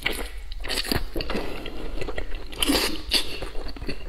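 Biting into and chewing a thick slab of braised pork belly close to a clip-on microphone, with irregular mouth clicks and smacks.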